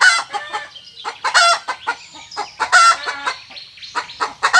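Chicken calling loudly: a sharp, pitched call about every second and a half, with softer calls in between.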